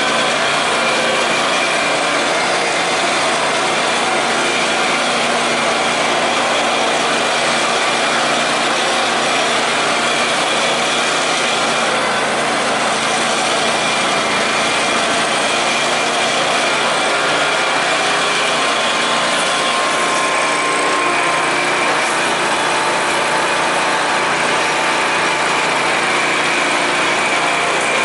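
Simplicity Legacy garden tractor engine running steadily under way.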